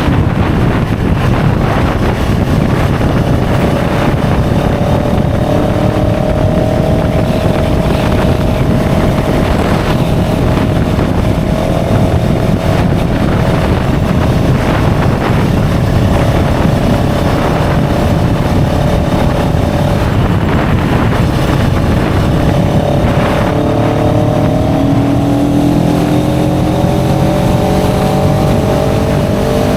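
CFMOTO 700 CL-X Sport's parallel-twin engine running through its stock exhaust under way, with wind rush. The engine note rises slowly, holds steady, then climbs again during the last quarter as the bike accelerates.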